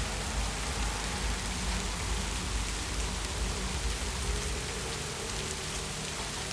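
Heavy rain falling steadily: a dense, even hiss of drops on hard surfaces with a low rumble underneath.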